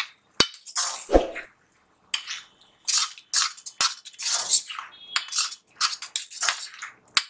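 Spatula scraping and stirring thick masala paste around a kadai in repeated strokes, about one every half second, while the paste is being fried. Sharp clinks come where the spatula knocks the pan, and there is a dull thud about a second in.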